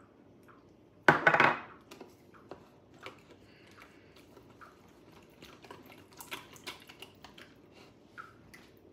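Small whisk stirring cornstarch into cold water in a measuring cup to make a slurry for thickening, with many light clicks of the whisk against the cup, thickest in the second half. A single loud clatter about a second in.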